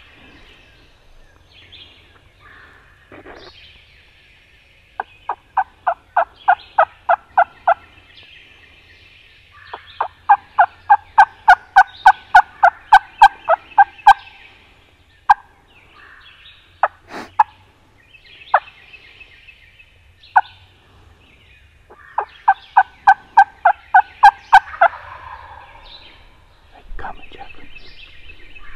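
Three loud runs of turkey yelps, each a string of evenly spaced two-note yelps at about three a second, with songbirds singing faintly behind.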